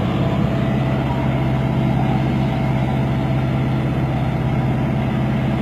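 Tractor diesel engine running steadily, hauling a heavily loaded trolley.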